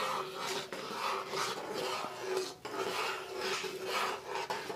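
A metal spoon stirring thick rice porridge (champorado) in a metal pot, scraping the pot's bottom and sides in a steady run of strokes, about two to three a second.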